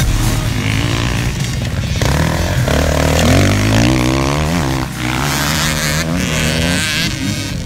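Dirt bike engine revving, its pitch rising and falling with the throttle, with a short drop about five seconds in.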